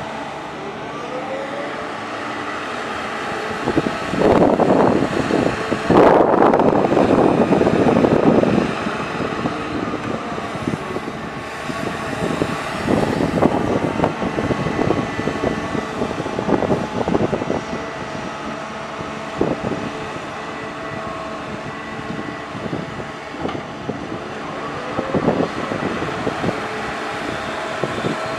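CAT 320D hydraulic excavator working, its diesel engine and hydraulics droning steadily with a faint whine. Louder, rougher spells come and go as the bucket digs and loads soil, the longest a few seconds in.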